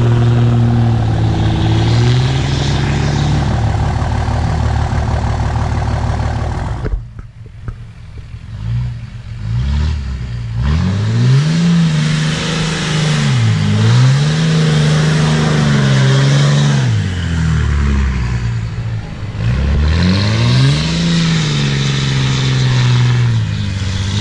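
Straight-piped Dodge Ram Cummins turbo-diesel running, at first steady and close by. After a sudden break about seven seconds in, it revs up and drops back several times as the truck is driven through loose sand.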